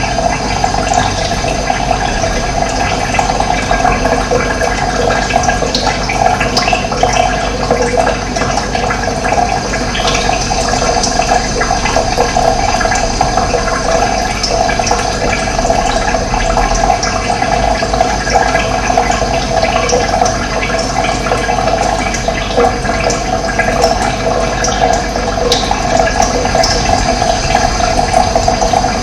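Running water flowing steadily, an even, continuous splashing with no breaks.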